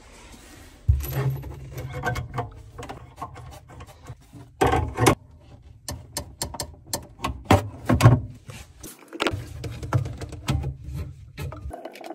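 Wrenches working on braided supply-hose nuts and an angle stop valve: irregular sharp metal clicks and knocks, with handling rumbles in between.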